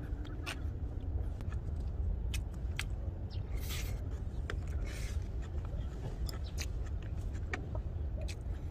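Eating utensils clicking and scraping against a griddle pan, a plastic bowl and a plastic food container as fried rice is served and eaten with chopsticks. Scattered sharp clicks and a few short scrapes sound over a steady low rumble.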